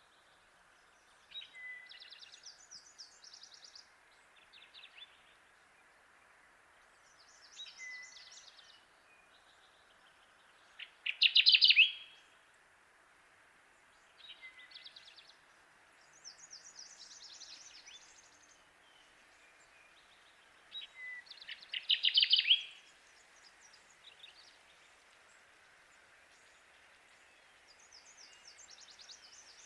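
Kirtland's warbler singing: two loud, short, rapid song phrases about ten seconds apart, with fainter, higher bird songs between them over a steady faint hiss.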